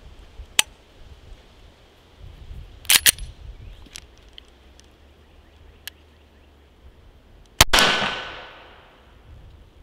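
Glock 19X 9 mm pistol being fired, held with a deliberately poor grip that makes it malfunction. Two quick sharp shots about three seconds in, a few faint clicks after them, then another shot near the end that rings out for over a second.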